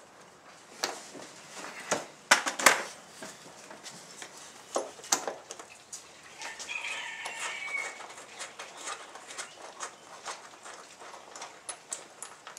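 Scattered knocks, clicks and scrapes of a hand working up inside a jet ski's fiberglass hull to grab a part. The sharpest knocks come between two and three seconds in, with a brief high squeak about halfway through.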